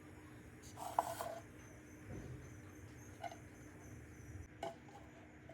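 Kitchen items being handled: a few faint knocks and clinks, the clearest about a second in, over a low steady hum.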